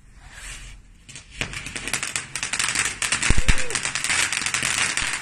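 Ground fountain firework starting up about a second in, then spraying sparks with a loud hiss and dense rapid crackling.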